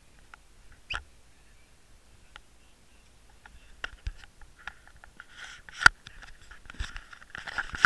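Handling noise from a camera held against clothing: scattered knocks and clicks, the loudest about six seconds in, with cloth rubbing and rustling over the last few seconds.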